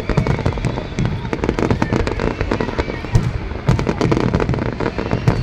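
Fireworks display going off densely: many rapid, overlapping bangs and crackles with no pause.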